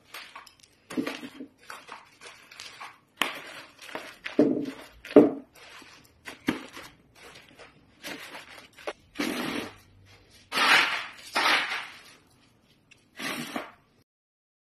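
Irregular rustles and crunches of dry wrapped bundles being handled and laid onto burning charcoal in a metal tray. There are several short bursts, the loudest pair a little past the middle.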